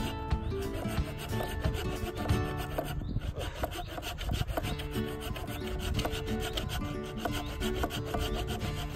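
Wood being sawn by hand, a rough run of back-and-forth rasping strokes through a dry root, with background music underneath.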